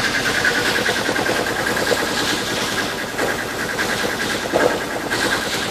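A boat's engine running steadily under way, heard on board, with a slightly pulsing high whine over a steady rush, and a small knock about four and a half seconds in.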